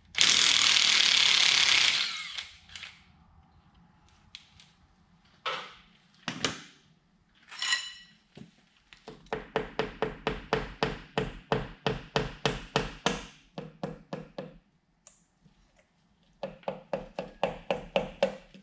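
A hand ratchet clicking in quick, even strokes, about four or five a second, turning a fastener in two runs: one of about five seconds midway and another near the end. It opens with a loud hiss lasting about two seconds, and a metal part clinks with a short ring in between.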